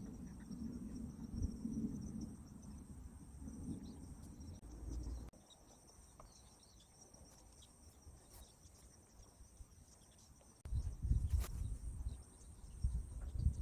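Insects chirring in a steady, high, continuous tone. Low rumbling noise on the microphone underneath cuts out about five seconds in and comes back louder a little after ten seconds in.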